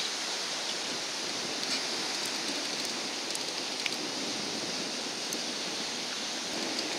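Steady, even rush of ocean surf.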